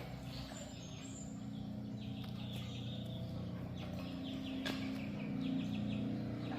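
Birds chirping faintly over a low steady hum, with a few sharp clicks.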